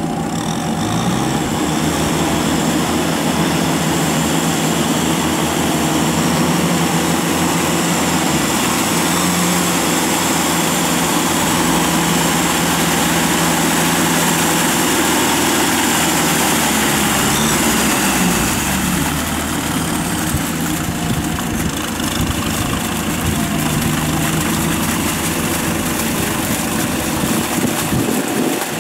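A Kubota tractor's diesel engine running steadily under load as the tractor works a flooded rice paddy on steel cage wheels, its pitch shifting slightly about two-thirds of the way in.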